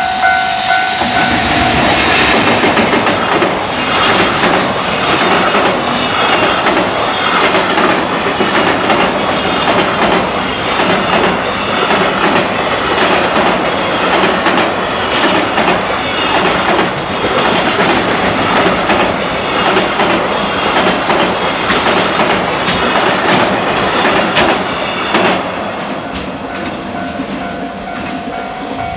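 Long container freight train hauled by a JR Freight EF210 electric locomotive, running past at speed, its wagon wheels clattering over the rail joints in a fast, steady rhythm across a steel girder bridge. The clatter grows fainter near the end as the last wagons draw away.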